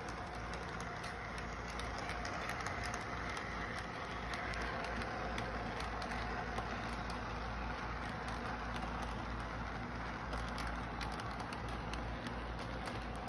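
Electric model train running on its track: a steady motor hum and wheel rumble with a light, continuous ticking of wheels over the rails.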